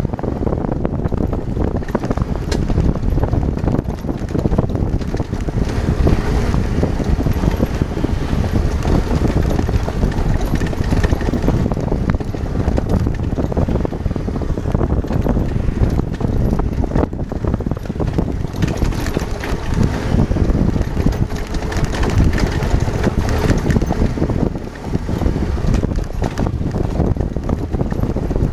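Adventure motorcycle riding on a rough dirt and gravel road: steady engine and riding noise with the tyres jolting over loose rock and wind on the microphone.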